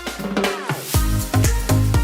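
Background electronic dance music. A falling sweep leads into a beat with heavy bass and drum hits that comes in about halfway through.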